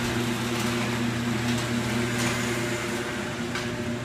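Small electric snowblower's motor running at a steady speed, a constant hum over a whirring noise.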